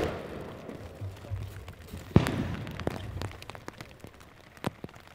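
Aerial firework shells bursting overhead. One loud bang comes about two seconds in and dies away in a rumble, with fainter pops after it.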